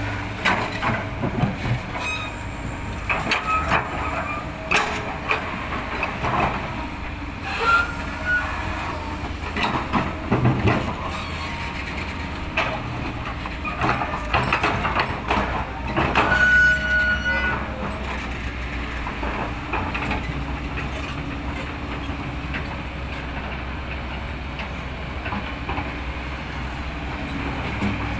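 Excavator's diesel engine running steadily while the bucket tidies and spreads soil, with many knocks and clanks in the first half and a brief high squeal about sixteen seconds in. After that, mostly the steady engine drone.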